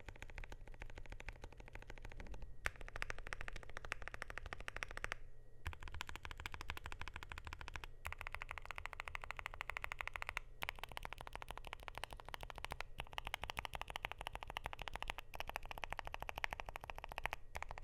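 Continuous fast typing on a KBD8X MKIII mechanical keyboard with lubed, filmed Gateron Zero Degree silent switches on a polycarbonate plate. It makes a quick stream of soft keystrokes, broken by brief pauses every few seconds.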